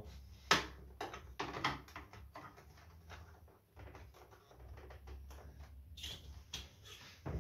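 Irregular clicks and scrapes of a screwdriver turning in a screw and hands handling the plastic back and stand of a flat-screen TV, with one sharp click about half a second in.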